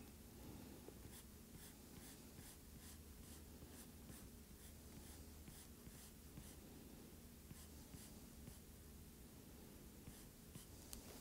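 Faint tapping and stroking of a stylus on a tablet's glass screen while drawing, light ticks roughly two or three a second over a low room hum.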